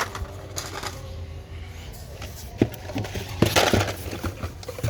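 Carded Hot Wheels cars being handled: cardboard and plastic blister packaging clicking and knocking, with a louder crinkling rustle about three and a half seconds in.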